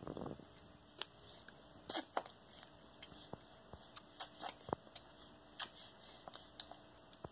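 Baby eating rice cereal off a plastic spoon: soft mouth clicks and lip smacks, with small taps of the spoon, after a short noisy burst at the start.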